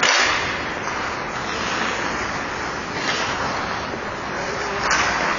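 Ice hockey rink noise during play: a steady rush of skates on the ice, with brief louder swells near the start and about five seconds in.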